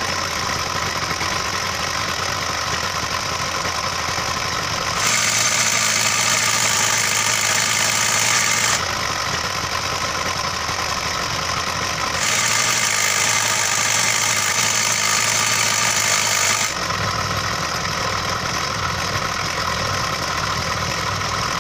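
Small two-stroke pull-start engine of a mini trail bike idling, its recoil-starter pawls padded with rubber so they no longer chatter against the flywheel fan. Twice, from about 5 to 9 s and again from about 12 to 17 s, the run turns brighter and noisier: the un-padded engine with the pawls rattling, set against the quieter padded version.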